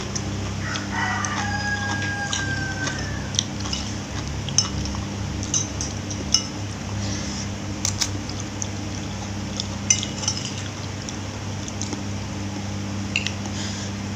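Spoon and fork clinking and scraping against a plate while eating, in scattered sharp clicks, over a steady low hum.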